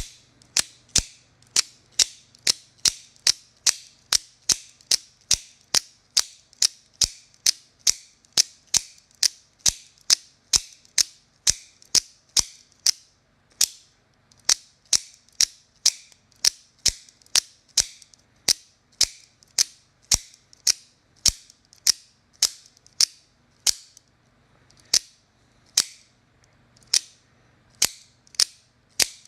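AKC F-16 out-the-front automatic knife fired open and shut over and over, the blade snapping out and back with sharp spring-driven clicks about two a second and a couple of brief pauses. The mechanism has been through some 2,500 cycles.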